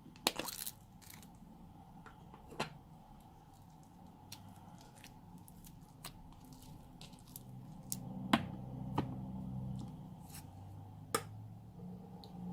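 Hands squishing, folding and stretching slime, with scattered sharp clicks and pops from the slime about every second or two; the loudest come just after the start and about eight seconds in.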